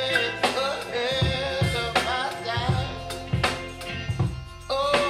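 A song played through a pair of floor-standing hi-fi speakers: a bending melody line over a bass line and regular drum hits.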